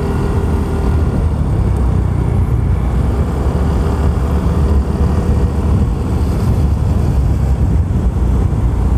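Steady wind rumble on an action camera's microphone while riding a Yamaha Soul GT 125 scooter, with the scooter's engine running underneath.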